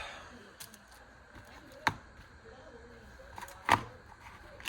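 A few sharp clicks and knocks of items and packaging being handled and set down, two of them louder: one about two seconds in and the loudest near the end.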